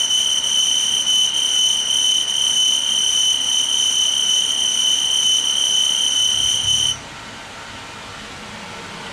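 RV furnace blower motor running with a loud, steady, high-pitched squeal that stops suddenly about seven seconds in, leaving a quieter low rumble. The squeal is the sign of a dry motor bearing that needs oil.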